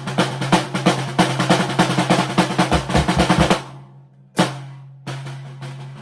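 Arbiter Flats snare drum played with sticks: a fast run of strokes and rolls for about three and a half seconds, with a few deep low thumps near its end. It stops, one loud hit about four seconds in rings out, then softer rapid strokes start again near the end.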